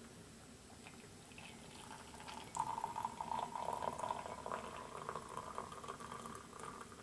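Hot water poured from a metal pot into a ceramic mug over a tea bag, a steady pour starting about two and a half seconds in and lasting about four seconds.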